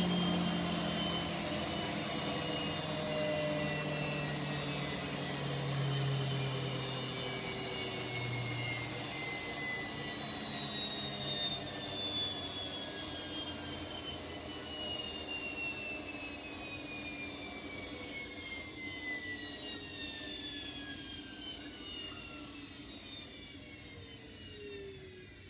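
Bosch Exxcel 1400 washing machine coasting down after its spin: the drum and motor whine falls steadily in pitch and fades as the drum slows.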